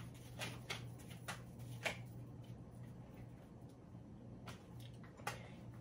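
Tarot cards being shuffled and handled: a run of soft, quick clicks and snaps, densest in the first two seconds, with a few more later, over a faint steady hum.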